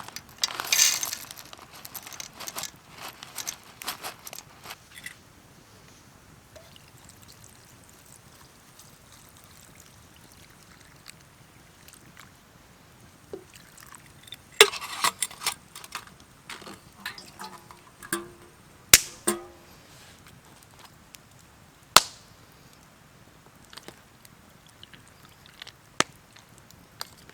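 Camp gear being handled: a short pour of liquid about a second in, then scattered clinks and knocks, with a cluster of sharp clicks in the second half and a single sharp click near the end.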